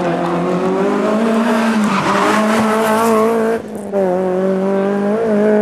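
Rally car engine running hard at high revs, a loud, fairly steady note. It drops out briefly between three and four seconds in, then picks up again.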